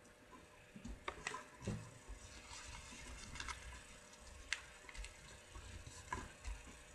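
A sheet of origami paper being flipped and folded by hand: faint rustling and crinkling with scattered sharp clicks as the creases are pressed down.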